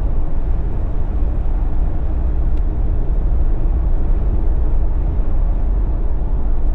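Jeep on BFGoodrich KO3 all-terrain tyres driving along a road, a steady low rumble of engine and tyre noise.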